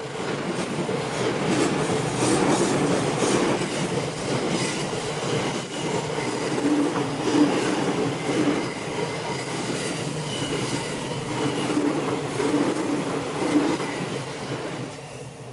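Train running past on a banked curve: wheels clacking in a rhythm over the rail joints with a thin, steady wheel squeal, the sound dying away near the end.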